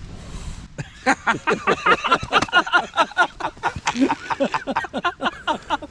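Several men laughing together in quick repeated bursts, starting about a second in.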